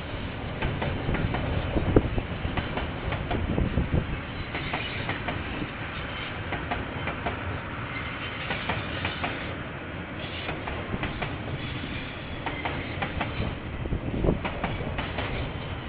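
A KiwiRail train's wagons rolling past, the wheels clattering over the rail joints in a steady run of clicks and knocks over a rumble, with a louder bang about two seconds in and another near the end. Heard thin and dull through a security camera's microphone.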